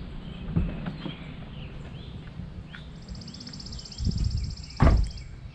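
Songbirds chirping in the trees, short scattered calls, with a high, even buzzing trill joining about three seconds in. A single loud thump comes near the end.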